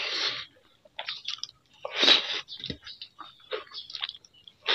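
A person eating pakhala, water-soaked rice, with the hand: wet, irregular mouth sounds of sucking the soaked rice off the fingers and chewing it. The louder bursts come at the start and about two seconds in.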